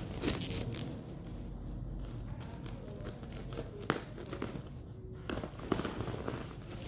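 Black plastic bag wrapping crinkling and rustling as it is handled and cut open, with a few sharp clicks along the way.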